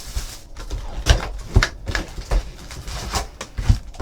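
Irregular taps, clicks and rustles of a trading-card box and its foil packs being handled and opened.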